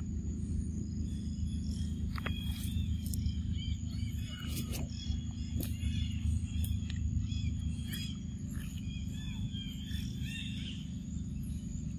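Forest ambience: a steady low rumble with small birds chirping in short phrases and a thin, steady high insect whine. A few sharp clicks and snaps come between about two and eight seconds in.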